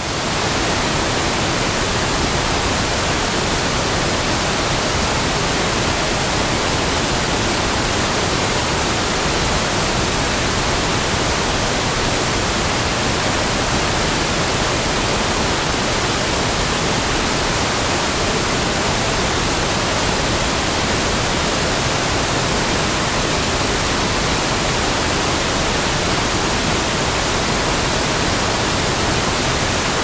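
Waterfall rushing, a steady unbroken hiss of falling water with no change in level.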